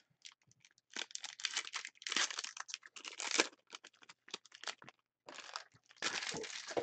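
Card-pack packaging crinkling and tearing in irregular rustling bursts, with small clicks, as a pack of trading cards is torn open by hand.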